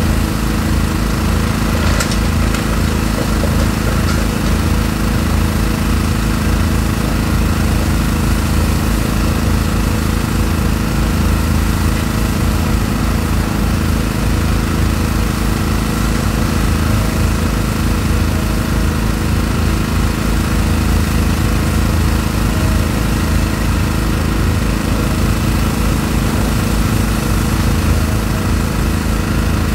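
Diesel engine of a high-reach demolition excavator running steadily with a low drone, with a couple of sharp cracks about two and four seconds in.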